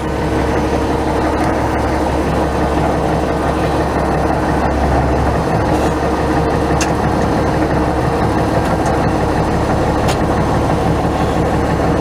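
International Harvester 1066 tractor's six-cylinder diesel engine running steadily at low speed, heard from inside the cab, with a couple of light clicks.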